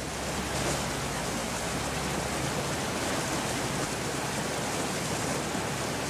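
Steady rush and churn of water in a moving boat's wake, with a faint low steady hum underneath.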